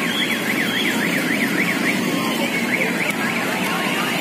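Electronic siren sound from a children's ride-on toy car's speaker, a fast warble up and down about five times a second. It breaks off briefly around two seconds in and starts again, over steady background hubbub.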